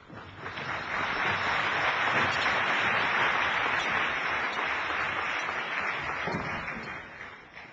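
Large audience applauding: the clapping builds up over the first second, holds steady for about six seconds, then dies away near the end.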